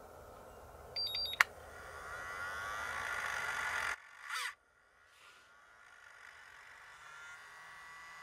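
Turnigy Accucell 6 hobby charger beeping as its start button is pressed, with a sharp click, then its cooling fan whirring up, rising in pitch and loudness. After a cut about four seconds in, the fan whirs again more faintly alongside a low hum. The owner says the fan is starting to act up.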